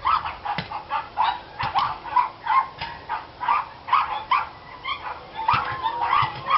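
Dogs barking continuously in quick, fairly high-pitched barks, about three a second.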